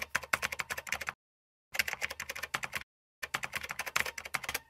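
Typing sound effect: rapid key clicks in three bursts of about a second each, with short silent gaps between them.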